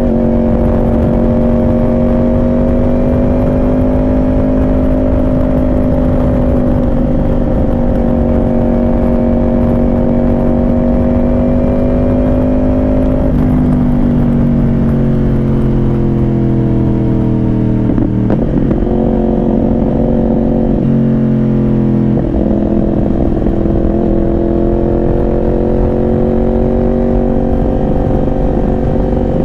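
Yamaha R1 inline-four sport bike engine with a Yoshimura exhaust, under way on the road: the engine note holds steady, then drops in pitch a few times past the middle, and climbs slowly near the end.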